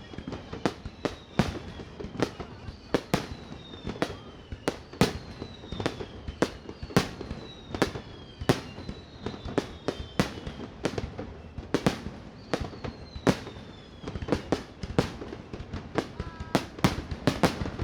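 Fireworks display, shells bursting in sharp, irregular bangs about two a second, coming a little faster near the end, with faint falling whistles between them.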